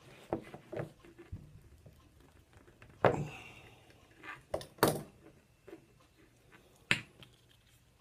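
Sharp metal clicks and knocks at irregular intervals as pliers squeeze and work a copper ring lug onto a heavy battery cable, an improvised crimp made without a crimping tool. The loudest knocks come about three and five seconds in, the first with a brief ring.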